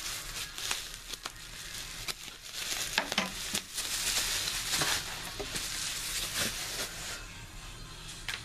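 Plastic bubble wrap crinkling and rustling as it is handled and pulled off a small cardboard box, with many small clicks, busiest in the middle and quieter near the end.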